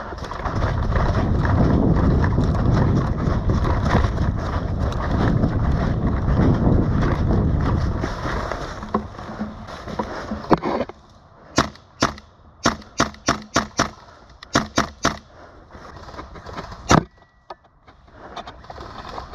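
Loud, close rustling and thudding of a player running in airsoft kit for about eight seconds. It is followed by a quick string of about a dozen sharp cracks of airsoft shots over a few seconds, and one louder crack a couple of seconds later.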